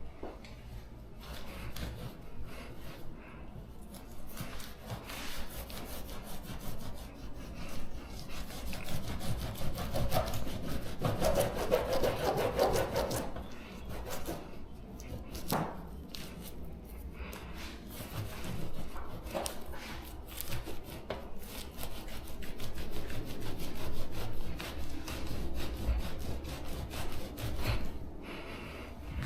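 A hand scraper scraping old spoiler adhesive off a car's painted rear, in many short, uneven strokes with light pressure.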